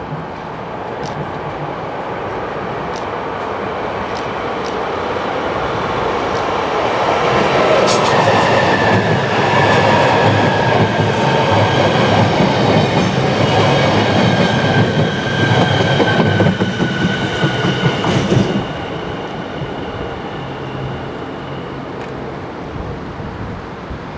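SJ X55 (Bombardier Regina) electric train passing close by: it grows louder as it approaches, with wheel clicks over the rail joints and a high whine that slides slowly down in pitch. The sound drops off suddenly about 18 seconds in, leaving a quieter steady train rumble.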